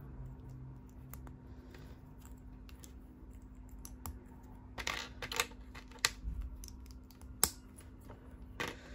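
Small LEGO plastic bricks being handled and pressed together: scattered sharp clicks, faint at first and stronger and more frequent in the second half.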